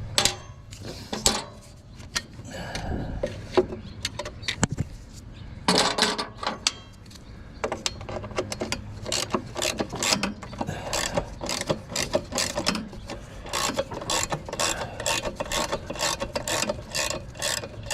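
Socket ratchet wrench clicking in an even rhythm, about three clicks a second, as a cover bolt is backed out, after a few scattered metal clanks and knocks in the first seconds.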